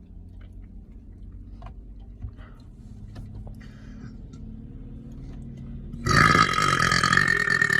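A man's loud, long burp, starting about six seconds in and lasting about two seconds. Before it there is only a low steady hum with a few faint clicks.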